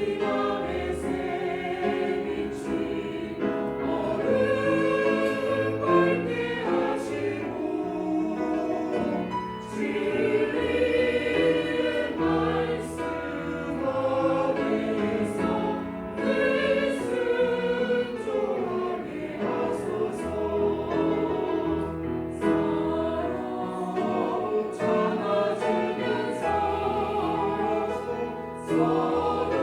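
Church choir singing a sacred anthem, with sustained sung lines over low held notes.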